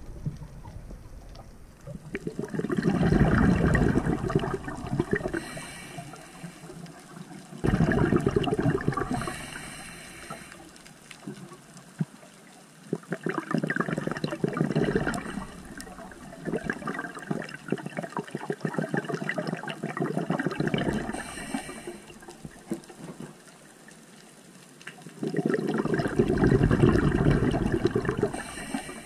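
Scuba diver's breathing recorded underwater: five surges of bubbling exhaust bubbles from the regulator, each lasting a few seconds, with quieter gaps between them and a short high hiss of inhalation at some of the gaps.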